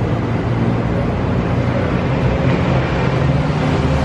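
A steady low mechanical rumble and hum with no break or change.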